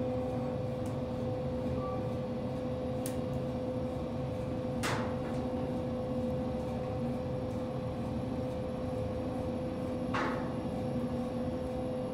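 Inside a Kone EcoDisc traction elevator car riding up one floor: a steady hum with a constant mid-pitched tone, and two short sharp clicks about five seconds apart.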